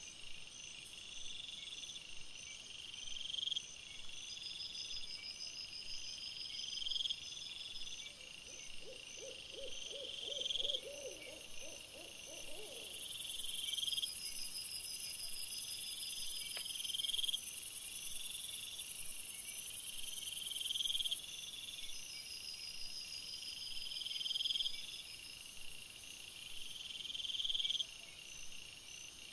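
Night insects chirping: short rising chirps repeating every second and a half or so over a steady high buzz. About nine seconds in, a short run of quick low pulsed calls comes in and stops after a few seconds.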